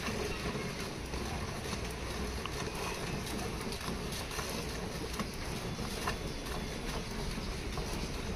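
Hand milking of a cow: milk squirting in thin streams from the teats as they are stripped by hand, over a steady background hiss.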